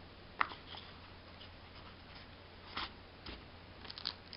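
Handling of a hard cardboard knife box with magnetic clips: a sharp click about half a second in, then a few softer clicks and taps later on.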